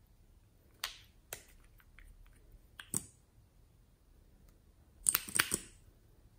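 Sharp plastic clicks from lip gloss tubes and their wand caps being handled, with a quick run of louder clicks about five seconds in.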